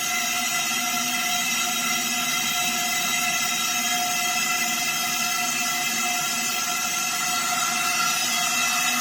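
A machine running steadily with a constant whir and a high whine.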